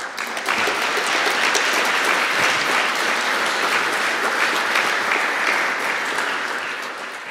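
Audience applauding, many hands clapping at once; it starts suddenly and fades away near the end.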